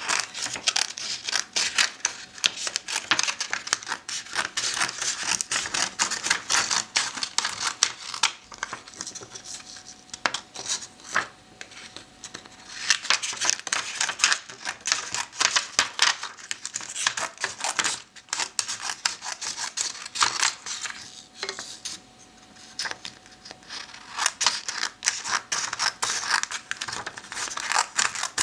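Scissors cutting photo paper: long runs of dense, crisp snipping, broken by a few short pauses.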